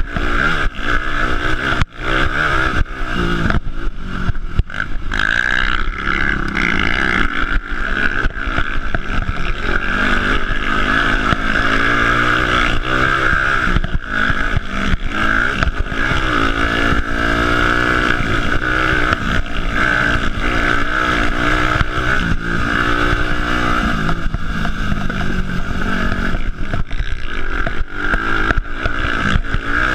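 Yamaha four-stroke dirt bike engine running and revving up and down on a rough trail, heard from the handlebars, with frequent knocks and rattles from the bumps.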